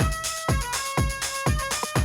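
Sonido de Valencia electronic dance music: a steady four-on-the-floor kick drum, about two beats a second, under a bright synth melody that holds and steps between notes.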